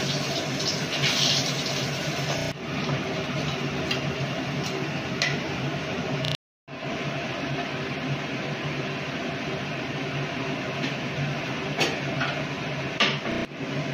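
Fish frying in hot oil in an aluminium kadai on a gas burner: a steady sizzle, brightest in the first couple of seconds, with a few light utensil clinks. The sound cuts out briefly about six and a half seconds in, then a similar steady hiss carries on.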